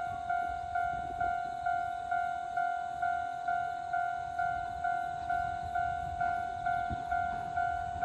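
Japanese railroad crossing's electronic warning bell ringing, an even ding repeated about twice a second, signalling that a train is approaching and the crossing is closed.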